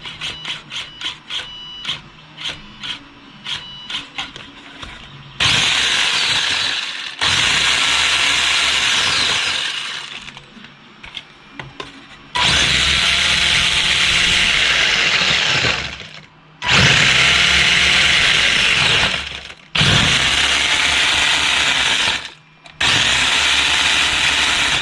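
Wltoys 124019 RC buggy's electric motor and four-wheel-drive drivetrain whirring in six throttle bursts of one to three and a half seconds each, after a run of short beeps and clicks as it powers up. The drivetrain sounds a little clogged as it slows down, which the owner puts down to the diffs.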